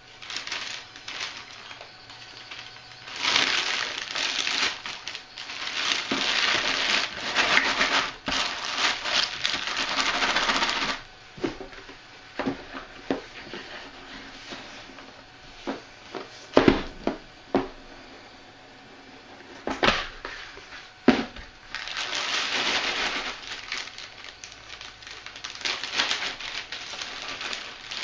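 A clear plastic bag full of cardboard jigsaw puzzle pieces crinkles and rustles in long stretches as it is handled. In the middle there is a run of separate knocks and taps.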